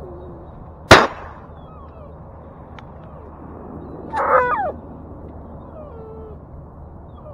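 A single shotgun shot about a second in, fired at a wounded duck that is still swimming and diving. About three seconds later the Labrador retriever gives one short, loud whine, with faint falling whimpers before and after.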